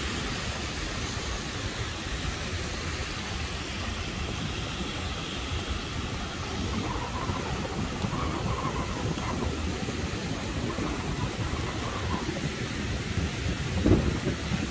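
Stormy seafront ambience: a steady rush of wind and rain with a heavy low rumble from wind buffeting the microphone, and traffic on the wet road. A louder gust hits near the end.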